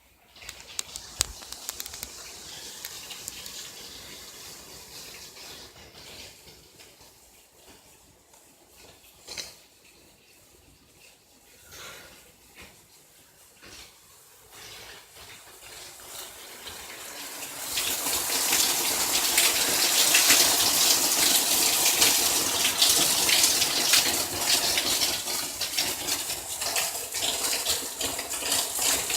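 Rain falling: a light patter with scattered drips at first, then swelling about two-thirds of the way through into a loud, steady heavy downpour.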